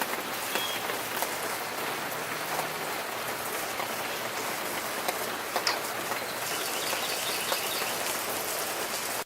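Steady patter of falling water, with scattered louder drops ticking through it.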